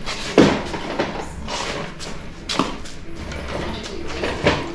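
Irregular metal clunks, knocks and scrapes as a Chevrolet V8 engine, hanging from a hoist, is lifted clear of a race car's tube-frame chassis.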